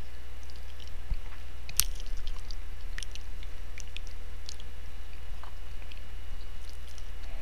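Steady low electrical hum with a faint higher whine, broken by scattered small clicks and ticks, the sharpest about two and three seconds in.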